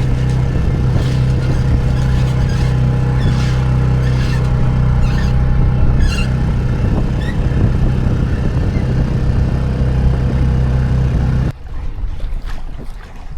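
A small sailboat's outboard motor running steadily, then cut off abruptly about eleven seconds in, leaving a much quieter background.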